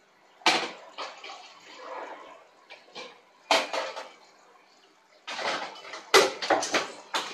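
Bowls and kitchen utensils being handled: a few separate knocks, then a quick run of clattering near the end.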